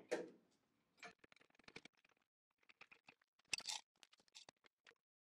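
Near silence with faint, scattered clicks and light taps, and a short brushing scrape about three and a half seconds in.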